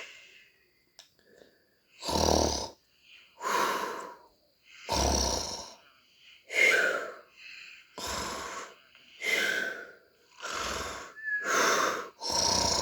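Cartoon pig snoring over and over, a rasping snore about every second and a half, several of them ending in a short falling whistle.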